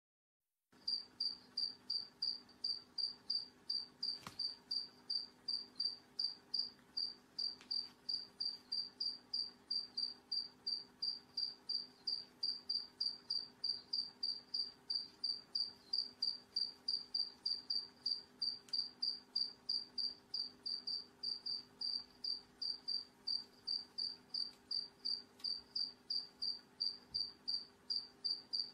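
Insect chirping in a steady, even rhythm of about three short high chirps a second, over a faint low hum.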